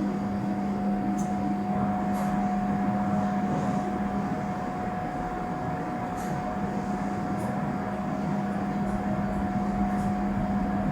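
Steady hum of running equipment, a low tone with a fainter higher tone over a noisy background, with a few faint, short high ticks scattered through it.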